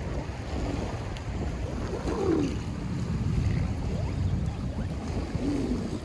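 Wind buffeting the microphone, over small waves lapping at a sandy shoreline. Two brief low calls, about two seconds in and near the end.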